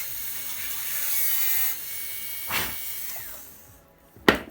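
High-speed dental air-turbine handpiece whining with a hiss of air as it cuts the cavity preparation. It stops abruptly under two seconds in and its hiss fades away over the next second or so. A light knock follows, then a sharp click near the end.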